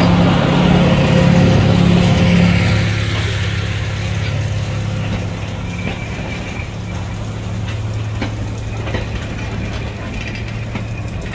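Narrow-gauge diesel locomotive's engine running with a steady low hum as it passes close by, fading after about three seconds. The open passenger carriages then roll past with scattered wheel clicks and a thin high squeal.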